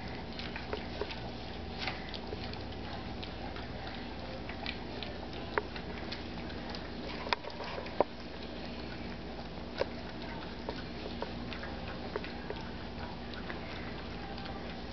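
A litter of Old English Sheepdog puppies eating kibble from a shared metal pan: scattered small clicks and clinks, with a few sharper ones in the middle, over a steady low hum.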